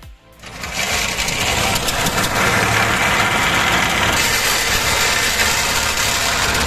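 Motorboat's engine running loudly and steadily under way; it comes in suddenly about half a second in.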